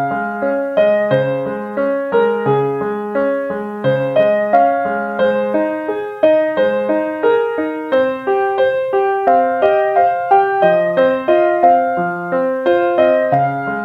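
Background piano music: an evenly paced melody of single struck notes over a lower bass line.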